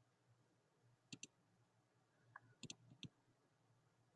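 Faint computer mouse clicks over near silence: a quick double click about a second in, another double click near the three-quarter mark, then a single click.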